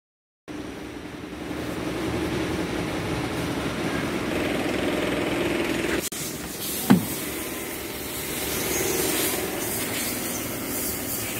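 Steady low running noise, with one sharp clunk about seven seconds in as the Toyota Hiace's door handle is pulled and the latch releases.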